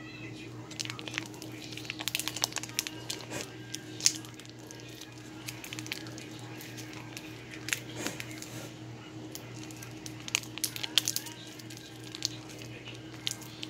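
Foil cheese-sauce pouch crinkling and squishing as the sauce is squeezed out over a steel pot, in scattered bursts of crackles, over a steady low hum.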